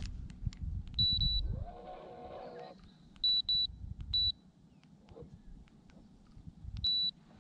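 Five short, high electronic beeps from the boat's electronics: a longer one about a second in, three quick ones a little past the middle, and one near the end. Between them there is a brief pitched call that rises and then holds, and low knocks and rumbles.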